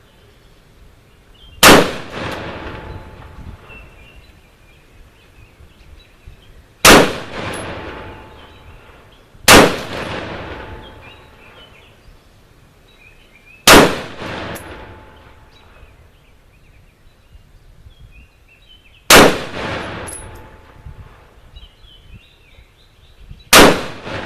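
A 10.5-inch-barrelled AR-15 pistol firing 5.56x45mm rounds in slow, aimed single shots: six sharp reports a few seconds apart, each trailing off into an echo.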